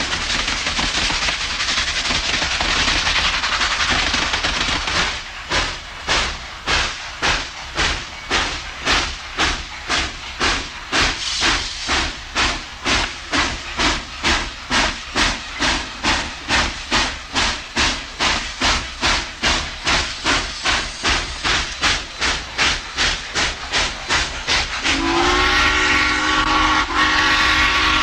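Steam locomotive working: a steady rush of steam for the first few seconds, then exhaust chuffs at about two beats a second with steam hissing from the open cylinder cocks. About three seconds before the end, a multi-note steam whistle sounds and is held.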